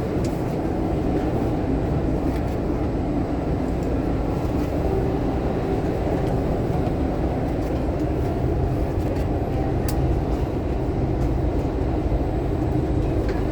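Steady running noise inside a Thomson-East Coast Line MRT train car as it travels between stations: an even low rumble from wheels and track with a faint steady hum.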